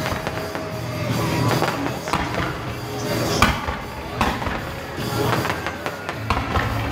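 Aerial fireworks going off in quick succession, with repeated bangs and crackles, the sharpest bang about halfway through. Music plays underneath.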